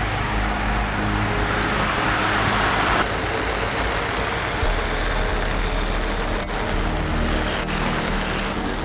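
Steady road noise of a vehicle driving on a rain-soaked road: tyres hissing through water over a low engine hum, with rain. The sound changes abruptly about three seconds in, its hiss dropping.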